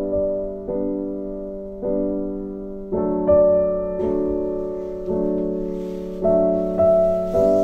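Background piano music: slow, gentle chords, struck again about every half second to a second. A faint hiss sits under it in the second half.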